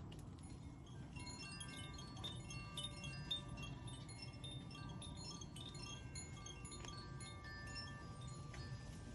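Metal wind chimes ringing: many clear, overlapping tones struck again and again, starting about a second in, over a low steady rumble.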